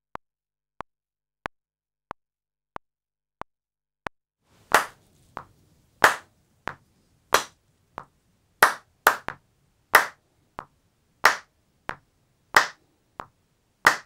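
Hand claps into a microphone, a snare backbeat: one sharp clap on every second beat of a faint metronome clicking at about 92 beats a minute. The clicks run alone for the first few seconds, and the claps begin about five seconds in.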